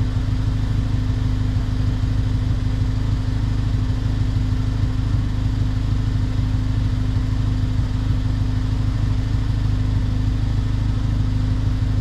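Ford Fusion's 1.6 L EcoBoost turbocharged four-cylinder idling steadily.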